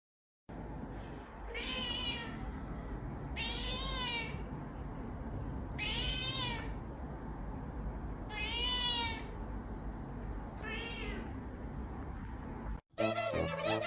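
A cat meowing five times, high-pitched calls about two to two and a half seconds apart, each rising then falling in pitch, over a low steady background noise. Near the end the sound cuts off abruptly and music starts.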